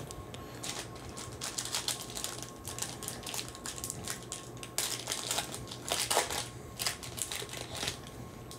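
Foil trading card pack wrapper crinkling and tearing open by hand: a run of sharp crackles, densest about five to six seconds in and again near the end.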